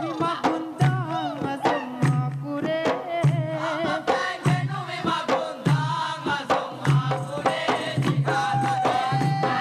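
Boduberu music: large Maldivian bodu beru drums beating a fast rhythm under male singing, with a deep drum stroke about once a second. About eight seconds in, the voices settle on one long held note.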